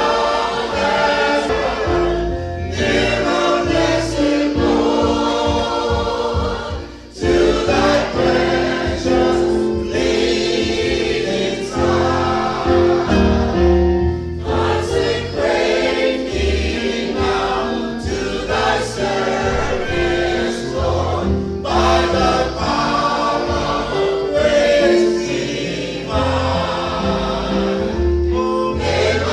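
Choir singing a gospel hymn over instrumental accompaniment with a low bass line, with a short break in the sound about seven seconds in.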